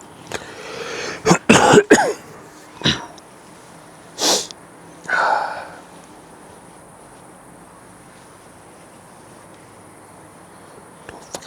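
A person coughing and clearing the throat in a cluster of short, sharp bursts between one and two seconds in, followed by a few single bursts over the next few seconds.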